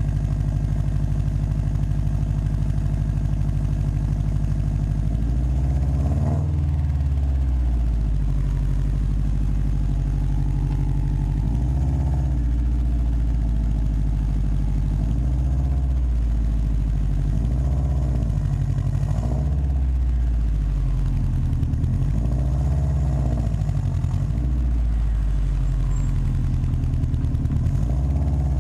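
Subaru WRX's turbocharged flat-four engine idling, then blipped up and back down several times, each rev a short rise and fall in pitch about every two to three seconds.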